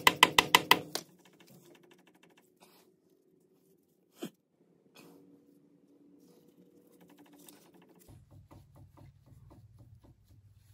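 A fast run of sharp knocks, about seven a second, as the Dana 44 differential carrier is tapped home into the axle housing. They stop about a second in, and a single knock follows a few seconds later, with faint handling noise between.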